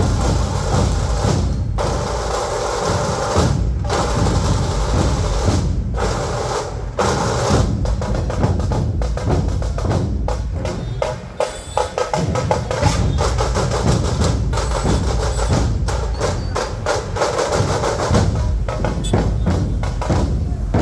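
Dhol drums played loud and fast in a dense, driving rhythm of deep beats and sharp stick strokes, briefly thinning out a little past halfway before picking up again.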